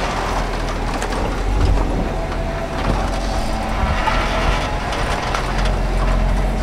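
Off-road 4x4 crawling slowly over rutted dirt close by: a low engine rumble with tyres crunching over dirt and stones, and many small clicks and knocks from the running gear.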